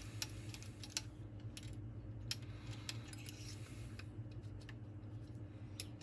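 Scattered light metallic clicks and clinks as a rocker arm is worked along and slid off its steel rocker shaft on a cylinder head, over a steady low hum.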